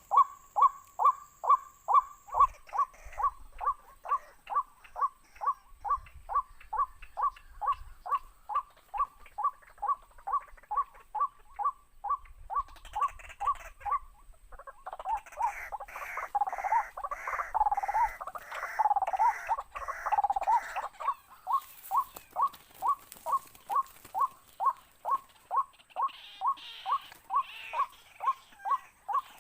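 Waterhen calls: short notes repeated very evenly, about two to three a second. From about 15 to 21 seconds in, a louder, harsher series of about six calls sounds over them.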